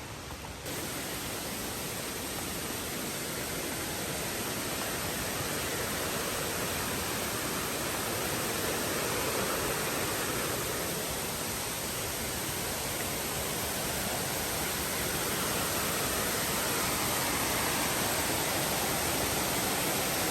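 Steady rushing of falling river water. It jumps up in level about a second in, then slowly grows louder.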